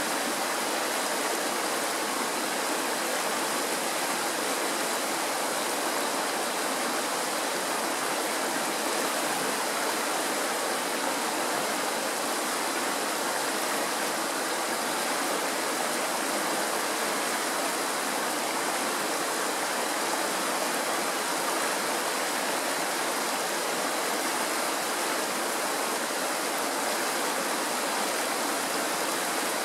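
Mountain stream rushing and splashing over rocks in shallow rapids, a steady, even rush of water with no letup.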